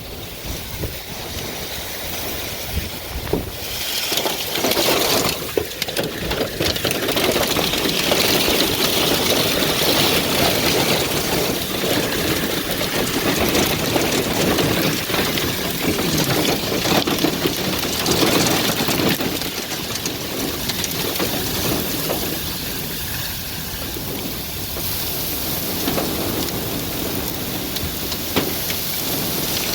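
Heavy wind-driven rain and strong wind from a severe supercell thunderstorm, a dense steady rush that builds about four seconds in and stays loud.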